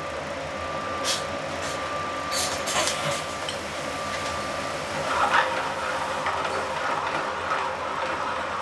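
Steady commercial-kitchen background noise from the gas range and ventilation running, with a faint steady whine and a few light knocks and clatters.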